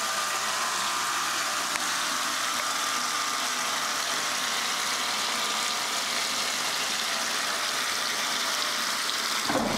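Top-loading washing machine filling at full flow: a thick stream of water from the fill inlet splashes into the sudsy water and clothes in the drum, a steady rushing hiss.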